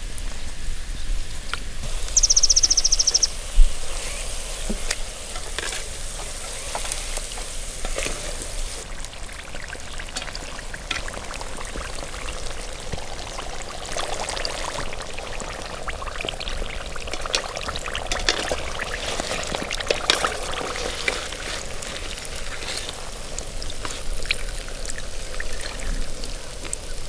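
Samosas deep-frying in hot oil: a steady sizzle with constant small crackles. About two seconds in, a rapid high-pitched trill lasts about a second, followed by a single sharp knock.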